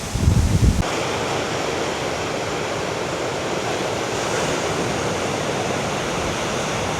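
Steady wash of ocean surf on a windy day. In the first second a gust of wind buffets the microphone with a low rumble, which cuts off abruptly.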